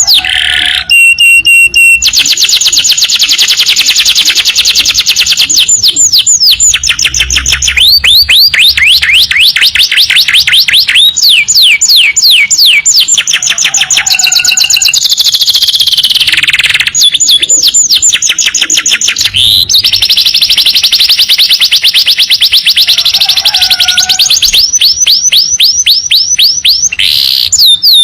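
Domestic canary singing a long, loud song of rapid trills: fast runs of repeated downward-sweeping whistled notes alternating with dense buzzing rolls, with only brief breaks between phrases.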